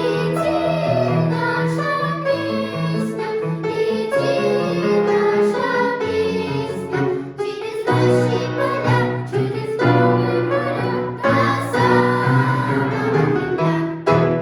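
Children singing a song over instrumental accompaniment.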